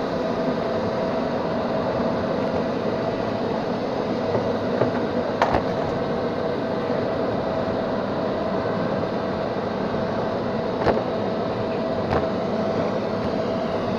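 Neato XV-21 robot vacuum's fan and brush motor running steadily with a constant hum, heard close up from on board the robot, with three short knocks near the middle and towards the end.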